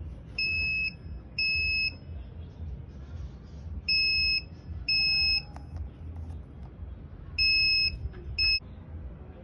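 SenseCO carbon monoxide alarm sounding, set off by fumes from burning coal: shrill half-second beeps in pairs a second apart, each pair coming about every three and a half seconds. The last beep is cut short.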